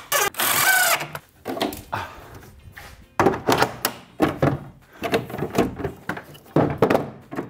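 A cordless driver runs a screw into a 3D-printed plastic hook for about a second. About three seconds in, a run of hard plastic knocks and clicks follows as a Bosch plastic tool case is set onto the wooden case, hooked in and lifted by its handle.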